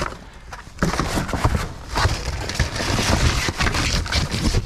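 Scrap debris being shifted and dragged in a dumpster: a dense, continuous run of clattering, scraping and crunching that starts about a second in.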